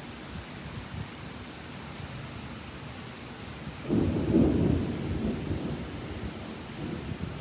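Steady rain, with a roll of thunder breaking in about four seconds in: a low rumble that comes on suddenly and fades away over a couple of seconds.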